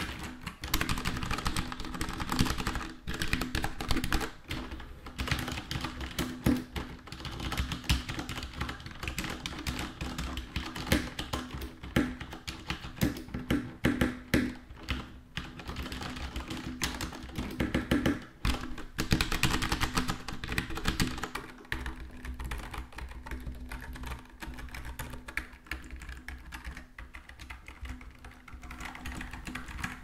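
Fast, continuous typing on a Corsair Vengeance K60 mechanical keyboard with Cherry MX Red switches: a dense run of keystroke clacks from switches that give no click, a little softer in the last few seconds.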